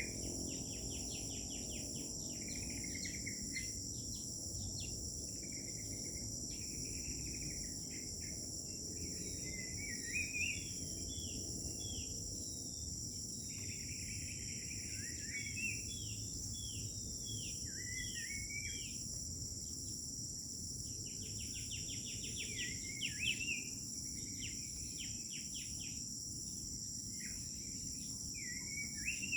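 Crickets trilling in a steady high-pitched drone, with songbirds calling over it again and again: chirps, quick trills and short downward-sweeping notes. A low background rumble runs underneath.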